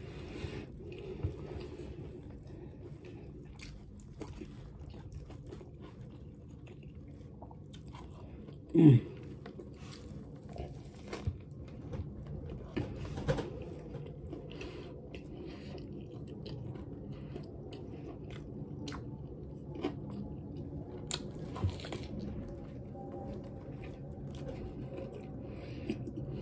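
Close-up chewing and biting of a sub sandwich, with soft bread and crunchy lettuce giving many small wet clicks and crunches. About nine seconds in, a brief hum drops in pitch and stands out as the loudest sound.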